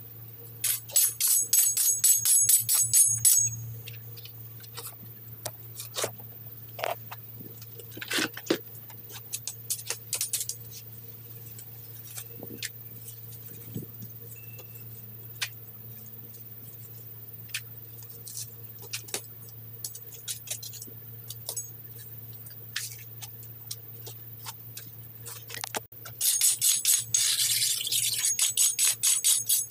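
Metal weeding scraper dug and raked between brick patio pavers in quick strokes: a fast run of scrapes near the start and another in the last few seconds, with scattered single scrapes and clicks in between. A steady low hum sits underneath.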